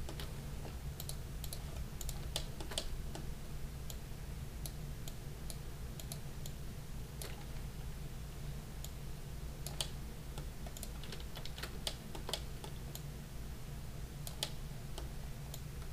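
Irregular clicks from a computer keyboard and mouse as a 3D model is sculpted, over a steady low hum.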